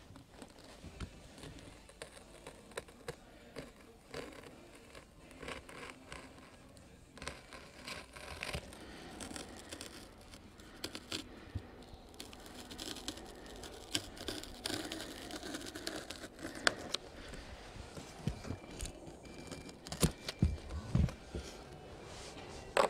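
Ceramic knife cutting through laminated EPP foam, a run of small scratches, crackles and clicks as the blade works along the edge and the plastic laminating film crinkles and tears. A few louder knocks near the end.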